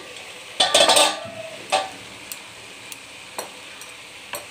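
Stainless steel pan lid handled with a loud metallic clatter and ring about half a second in, then another clank. After that come a few light knocks of a spatula against the frying pan as shredded cabbage is stirred.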